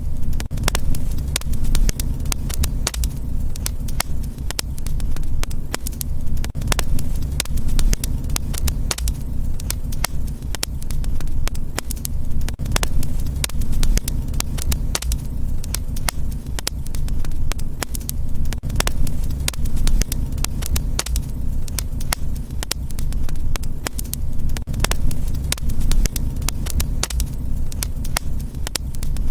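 Wood fire in a fireplace crackling, with many irregular sharp pops and snaps over a steady low rumble of burning.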